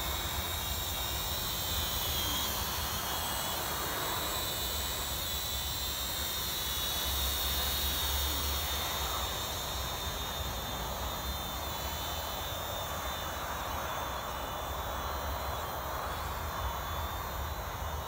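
Small quadcopter drone flying overhead, its propellers giving a steady whine, with wind rumbling on the microphone.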